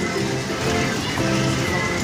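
Music playing: a melody of held notes that step from one pitch to the next over a steady lower part.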